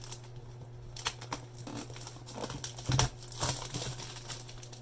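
Packaging of a Google Home Mini box crinkling and rustling as it is pulled open, in short irregular handling noises with a louder knock about three seconds in.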